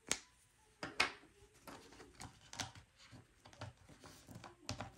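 Paper bills and paper envelopes being handled and rustled, with two sharp snaps about a second apart near the start, then a run of lighter crinkles and ticks.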